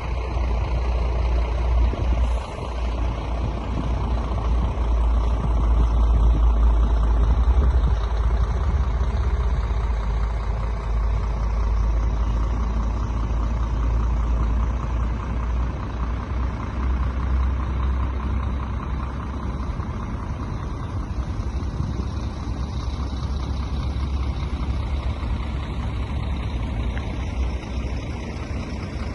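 Truck engine running steadily at idle, a continuous low rumble with no change in speed.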